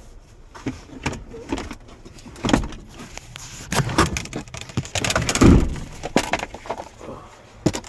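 Clicks, knocks and thuds of a car's doors or interior being handled, with a heavy thud about five and a half seconds in.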